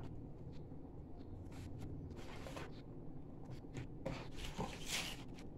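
Paper comic books being handled and laid down on a wooden table: soft paper rustling and sliding with a few light taps, rising to two brief rustles about two seconds in and again about four seconds in.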